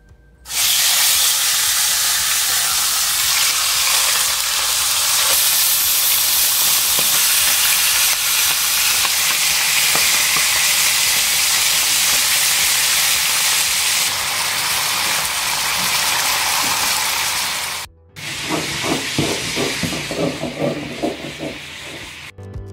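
Raw chicken leg and thigh pieces going into hot oil in a large pan and frying with a loud, steady sizzle that starts suddenly and cuts off after about 18 seconds. A shorter, choppier, uneven sound follows after a brief break.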